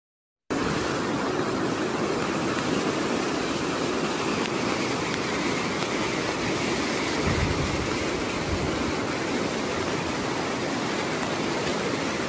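Fast floodwater rushing through a street: a steady, even wash of water noise that starts about half a second in, after a brief silence.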